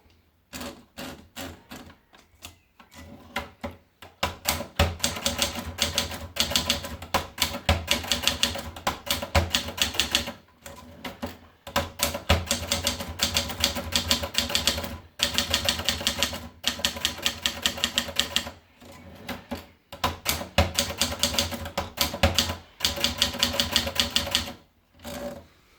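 Adler Tippa portable typewriter being typed on: quick runs of key strikes broken by short pauses.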